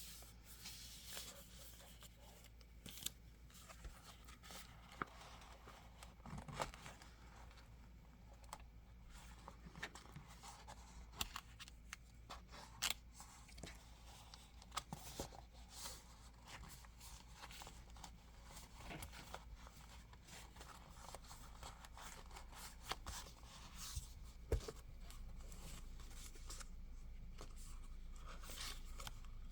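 Stiff plastic planner cover being handled and worked onto a planner: faint crinkling, scraping and scattered small clicks.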